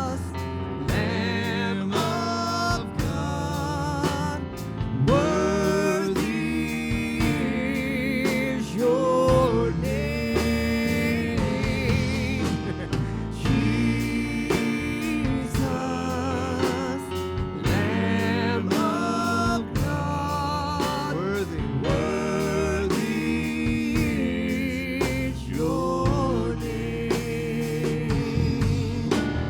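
Live church worship music: a slow praise song in B flat played by a band, with singing over it.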